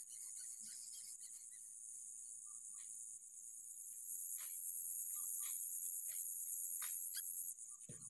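Steady high-pitched buzzing of insects, finely pulsing, with scattered short sharp chirps over it.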